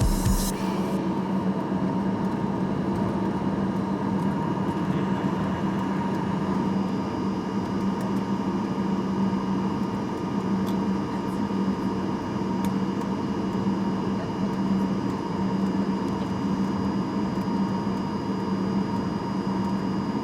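Steady cabin noise inside a Boeing 737-800: a constant engine and air-system drone with a low hum. A faint high whine joins about six seconds in and holds steady.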